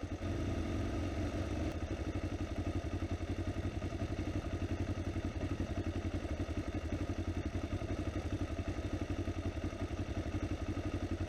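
Motorcycle engine running steadily at low revs, an even fast pulsing with no revving.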